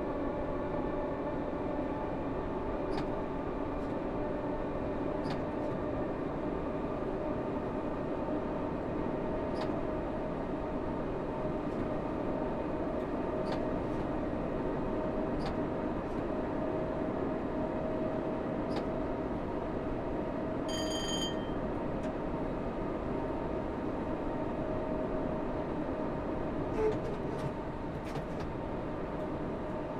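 Class 314 electric multiple unit running: a steady hum with several held tones, and faint sharp clicks every couple of seconds. A short high electronic beep sounds about 21 seconds in, and a louder knock comes near the end.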